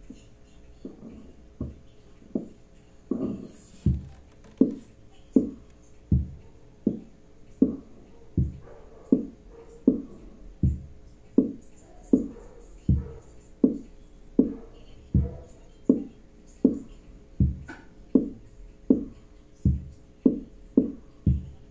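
Lowrey GA-K organ's built-in automatic rhythm unit playing a steady electronic drum pattern, a hit about every three-quarters of a second, with deep thumping bass-drum beats alternating with higher drum hits that drop in pitch. It fades in during the first two seconds, with a faint steady organ hum underneath.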